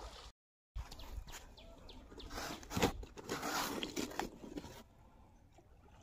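Live fish thrashing in a plastic bucket as a hand grabs them: a run of knocks, slaps and rustling, loudest about three seconds in, then quieter.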